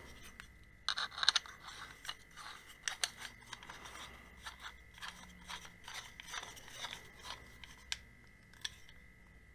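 Hands handling small hardware parts: a run of scattered clicks, taps and light scraping, loudest about a second in, over a faint steady high tone.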